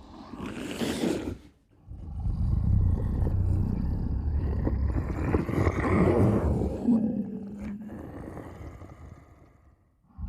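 Monster growl sound effect of the Kothoga creature. A short breathy rasp comes first, then after a brief pause one long, low, rough growl that swells in the middle and fades out near the end.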